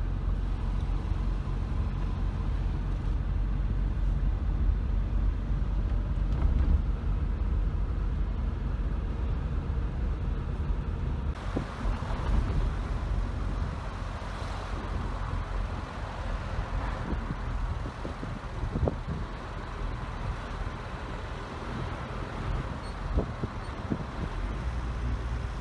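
Suzuki Jimny driving: a steady low engine and road rumble. A brighter rushing hiss joins about halfway through, with a few short knocks later on.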